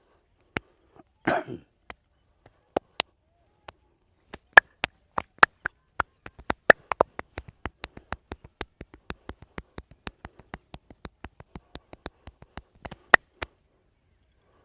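Hands striking skin in a fast percussive massage: sharp slaps and claps, a few spaced apart and then a steady run of about four a second. A short cough-like throaty noise comes about a second in.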